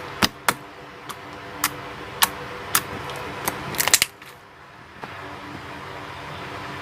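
Wood-glue slime mixed with playcorn being squeezed and worked by hand, giving a string of sharp pops and clicks over the first four seconds, then quieter handling.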